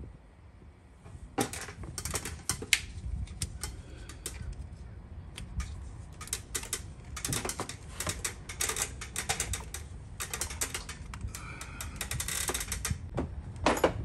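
Irregular light metallic clicks and clatter as the valve lifter oil manifold (VLOM) plate, with its bolts in place, is handled and lifted in the valley of a 5.3 LS V8. The clicks start about a second and a half in and come thickest near the end.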